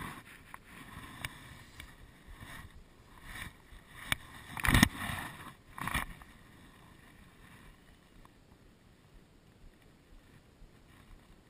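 Handling noise from a fly angler working the rod and line: a run of scrapes and knocks, the loudest about five seconds in. After that it settles to a quieter steady hiss.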